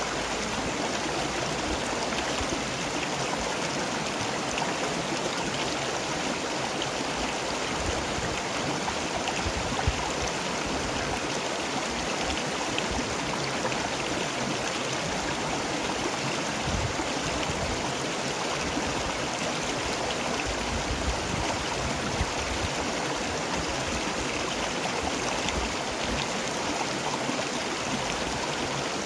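River water flowing steadily, a continuous rushing with small splashes and gurgles scattered through it.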